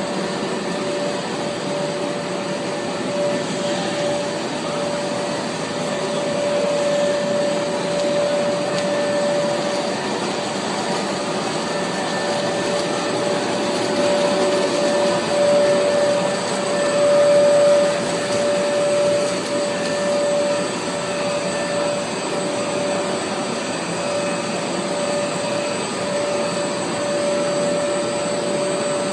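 Multi-layer extrusion coating and laminating line running: a steady machine noise with a steady whine held at one pitch.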